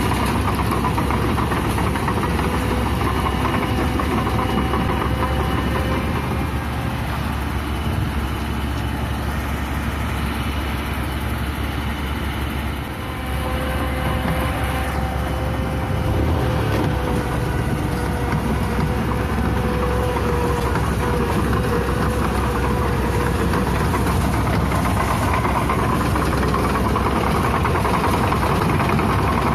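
Yellow crawler tractor's diesel engine running steadily, with a few faint whining tones over the rumble; the level dips briefly about halfway through, then picks up again.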